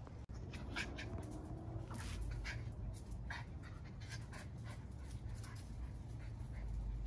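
Miniature Schnauzer panting in short, irregularly spaced breaths over a low steady rumble.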